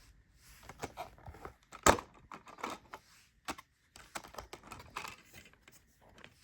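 Plastic DVD case and packaging handled by hand: an irregular run of clicks and rustles, with one sharp snap about two seconds in.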